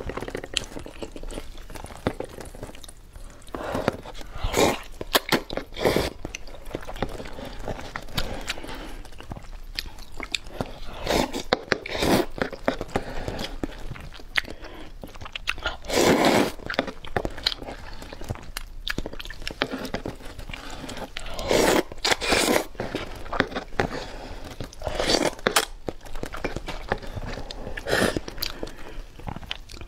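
Close-miked eating: noodles in broth slurped up from a cup in short loud sucks every few seconds, with chewing and wet mouth sounds between.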